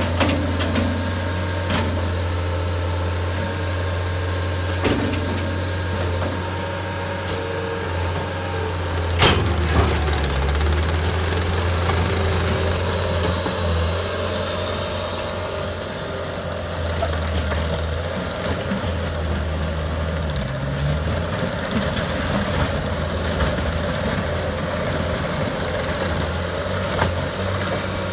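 Caterpillar skid steer loader's diesel engine running and working under changing load, its low note stepping up and down, with occasional metal clanks, the loudest about nine seconds in.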